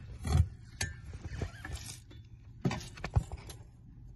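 Handling noise under a car's dashboard: a few scattered light clicks and short rubbing rustles of hands and a hand-held camera against the steering column's plastic and metal parts.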